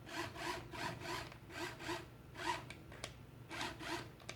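Small battery-powered motor and plastic gears of a remote-control Chuggington Brewster toy train running, a rhythmic rasping grind pulsing about two to three times a second.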